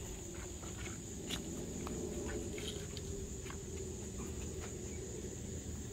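Steady high chirping of crickets, with a few faint scattered clicks and knocks over it.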